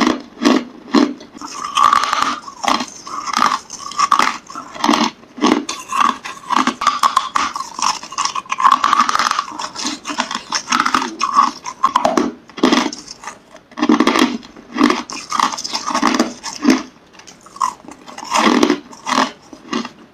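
Close-miked crunching of hard crushed ice being bitten and chewed, a dense run of sharp cracking crunches several times a second with short pauses between bites.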